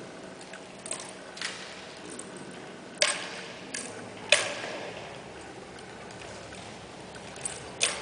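Sharp slaps and knocks of a twirling drill rifle being caught and handled, irregularly spaced, the loudest two about three and four seconds in, each followed by a short echo.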